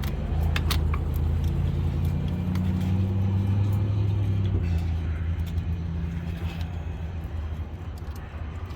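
Motor vehicle engine running nearby: a steady low hum, louder in the first half, its note dropping about halfway through and fading toward the end. A few sharp clicks near the start.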